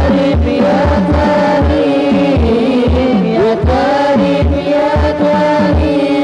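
Devotional qasidah sung to an ensemble of rebana (hadrah) hand frame drums. The voices carry a wavering melody over a steady, interlocking rhythm of deep open strikes and sharper slaps on the drumheads.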